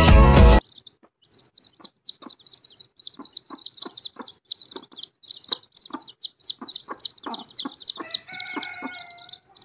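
A brood of day-old chicks peeping in a continuous high-pitched chorus, with many soft irregular taps. Lower held hen notes come in near the end.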